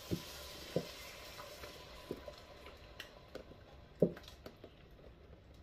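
Congealed bone broth glugging out of a carton into a Dutch oven, in about six soft, irregular plops over a faint pouring hiss that dies away about halfway through.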